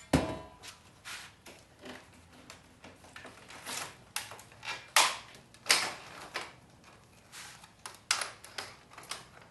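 Irregular clanks and knocks of smart-board parts being handled during disassembly, opening with a loud clank that rings briefly, with further sharp knocks about five and six seconds in and again around eight seconds.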